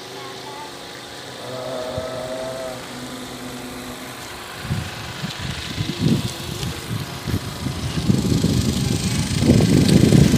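Wind buffeting the phone's microphone in irregular gusts, growing stronger about halfway through.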